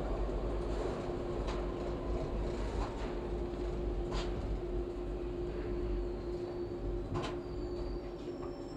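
Toronto subway train running out of a station into the tunnel, heard from on board: a steady rumble and hum with several sharp clicks scattered through it.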